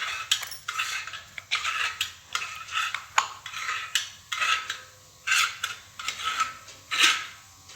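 Metal parts of a snack-maker press, its container and cap, clinking and scraping against each other as they are handled, in a string of short knocks with a brief ring after some of them.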